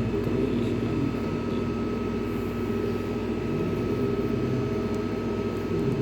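Steady mechanical hum with a faint high steady whine and no distinct events: the running equipment or ventilation of a machine lab.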